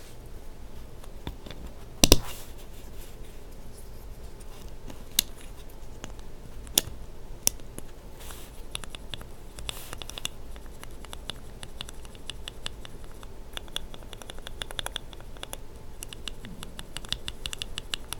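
Mechanical keyboard switches (BSUN Brown housings with Kailh burgundy linear stems) worked by hand to feel their smoothness: one loud click about two seconds in, a few single clicks, then from about halfway a quick run of light, scratchy clicks.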